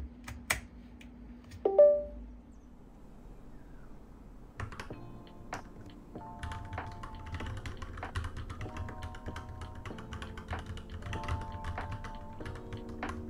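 A USB wireless receiver clicks into a laptop's port, and about two seconds in a short electronic chime sounds, the loudest thing here. From about five seconds in, steady typing on a Royal Kludge RK87 mechanical keyboard, a fast run of key clicks, over background music.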